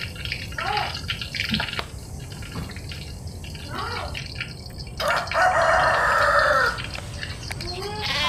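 Hot oil sizzling in a wok as fried mackerel is lifted out, with a few short rising-and-falling animal calls over it. About five seconds in a rooster crows for nearly two seconds, the loudest sound.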